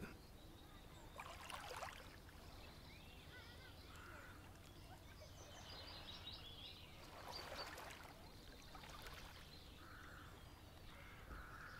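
Faint water splashing and lapping in shallows, with a few faint high short calls.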